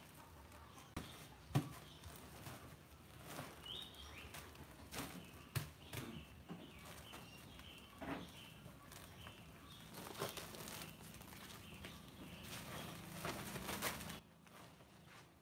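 Irregular knocks and thuds with rustling of plastic sacks as wood ear mushroom baglogs are handled and unloaded from a wooden truck bed. The sharpest knock comes about one and a half seconds in.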